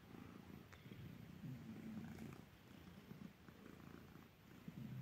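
Domestic cat purring softly, the low rumble swelling and fading in slow pulses.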